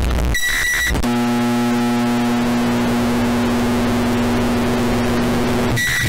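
Microwave oven sounds, boosted until they distort: a beep about half a second in, then a steady low hum of the oven running for nearly five seconds, and beeping again at the very end.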